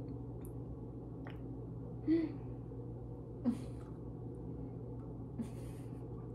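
Steady low room hum with small sounds of people tasting food: a few brief mouth clicks, a breath, and a short hummed "mm" about two seconds in.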